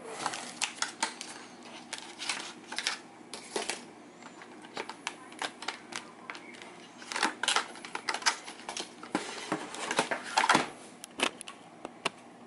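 Cardboard box and plastic packaging being handled: irregular clicks, taps and brief scraping rustles as the packaging is opened and sorted.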